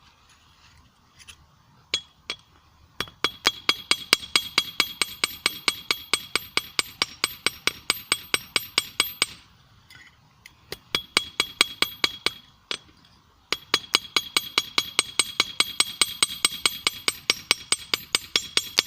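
Hand hammer striking a red-hot screw blade on a small 25 lb anvil in quick runs of about five blows a second, each blow ringing with a high metallic note, drawing the end out to a point. The runs stop briefly twice.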